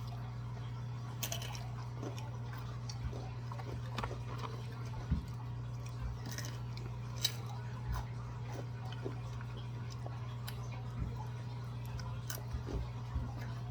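People chewing and crunching Takis rolled tortilla chips: irregular short crunches and chewing over a steady low hum.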